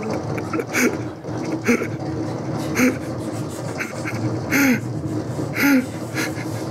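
A woman making roller-coaster sound effects with her mouth and voice: short breathy bursts about once a second, some ending in a falling whoop, over a steady low rumble.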